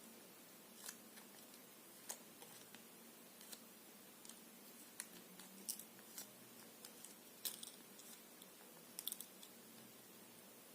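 Faint, scattered clicks and light taps of a spoon and glassware being handled as honey is spooned into a glass, over quiet room tone; the sharpest clicks come in a cluster in the second half.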